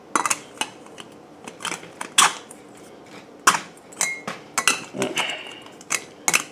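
Irregular clicks, taps and clatter of hard desk-lamp parts being handled as the front cover is fitted onto the lamp's LED head; a couple of the knocks ring briefly.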